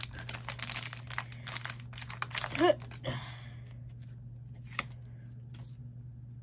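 Foil wrapper of a Pokémon trading card booster pack crinkling in the hands and being torn open, with a short hummed vocal sound about two and a half seconds in, then only a few light rustles and clicks.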